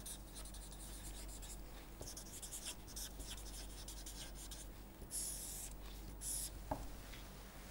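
Marker pen writing on paper, faint scratchy strokes, then two longer strokes a little past the middle as lines are drawn under the words.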